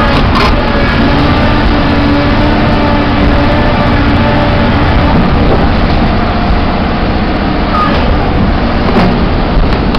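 Heavy mining-machine diesel engine running loudly and steadily as a CAT 5130B shovel rides on its Sleipner transport dollies, with a couple of brief knocks.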